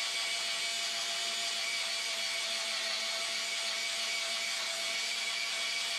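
Cordless electric spin scrubber running steadily on its high speed, its spinning brush scrubbing wet tile grout: an even motor whine over a steady scrubbing hiss.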